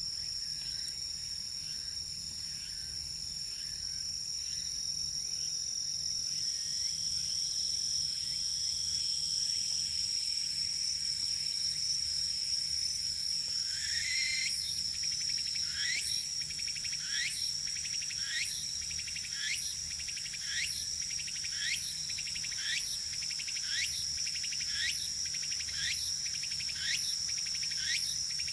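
Insects singing: a steady high-pitched trill, joined about halfway through by a repeated rising chirp roughly once a second.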